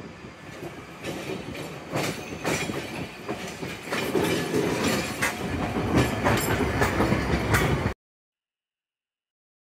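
Hiroden 700-series tram No. 707 pulling into the platform close by, its running noise growing louder as it passes, with its steel wheels clacking irregularly on the rails. The sound cuts off abruptly about eight seconds in.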